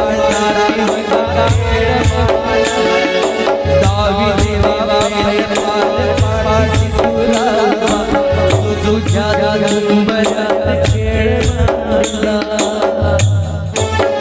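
Devotional music: a wavering melody over a steady beat of hand drum and jingling, rattling percussion.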